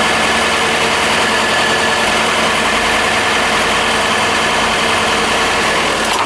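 Refrigerated trailer's cooling unit (reefer) running steadily at close range, a loud even mechanical drone with a few steady hum tones, holding the load at its 3 °C setpoint.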